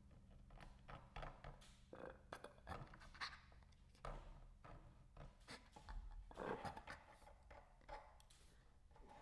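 Near silence broken by faint, scattered clicks and soft rustling sounds, with a low hum that fades out in the first second.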